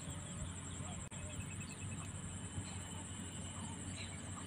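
Outdoor ambience at a lake shore: a steady high insect trill with a few faint bird chirps over a low rumble.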